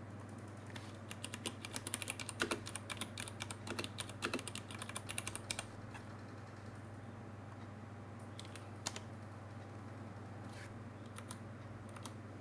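Typing on a computer keyboard: a fast run of keystrokes for about five seconds, then a few scattered keystrokes, over a steady low hum.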